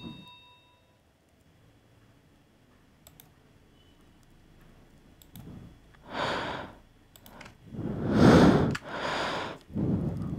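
A few faint computer mouse clicks over near silence, then three loud breaths close to the microphone in the last few seconds, each about half a second long.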